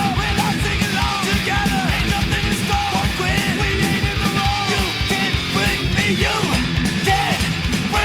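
Loud punk or heavy rock music with shouted vocals, driving drums and distorted guitar.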